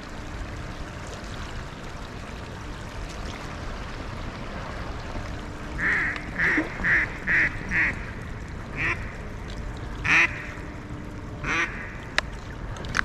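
Duck quacking: a run of five evenly spaced quacks about six seconds in, then three single quacks, with a sharp click near the end.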